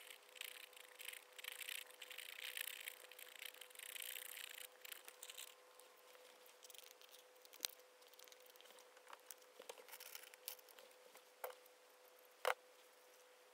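Clear plastic bag crinkling as it is handled for about five seconds, then a few scattered light clicks and taps of small tools on the workbench, with one sharper click near the end.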